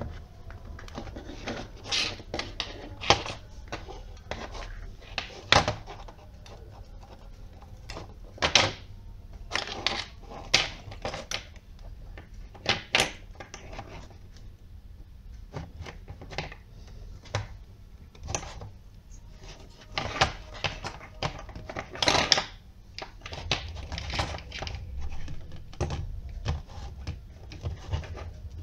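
Irregular clicks, taps and knocks of small parts being handled: plastic of a clear container, small circuit boards and wire connectors knocking against it as they are fitted inside, some sharp and louder than others.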